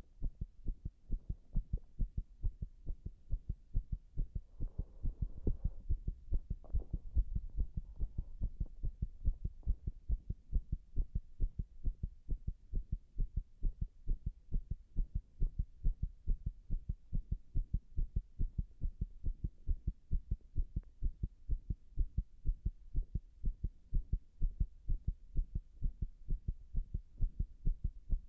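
Human heartbeat heard close up, a continuous run of low thumps, recorded with the chest pressed against a wall; the uploader calls it arrhythmic. A brief faint rustle comes about five seconds in.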